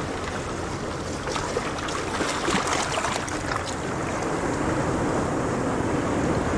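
Sea surf breaking and washing over rocks: a steady rush of water, with a patch of crackling spray around the middle.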